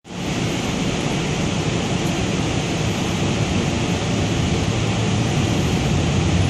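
Cabin ride noise inside a Siemens SD-160 light rail car under way: a steady low rumble with a hiss above it.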